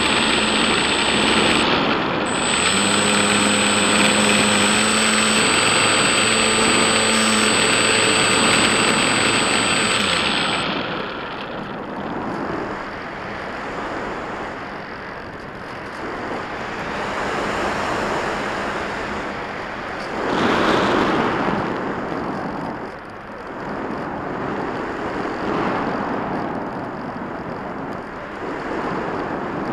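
Brushless electric motor and propeller of a Bixler-type foam RC plane whining steadily under power, recorded by the onboard camera with heavy wind rush. About ten seconds in, the motor note cuts off, leaving only the rush of air over the plane, which swells and fades as it glides.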